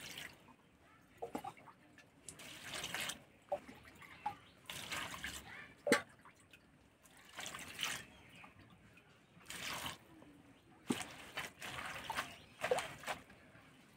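Spinach leaves being washed by hand in a metal bowl: water poured over them and dribbling back, with short irregular splashes as the leaves are swished and lifted through the water. A single sharp tap stands out about six seconds in.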